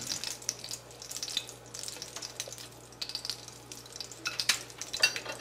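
Oil sizzling and crackling in a frying pan, with scattered small clicks and pops.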